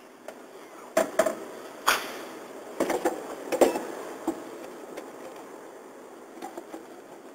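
A hand handling items in a cup noodle vending machine's dispensing compartment: a string of sharp knocks and plastic clatters, most of them in the first half, with a few fainter taps near the end.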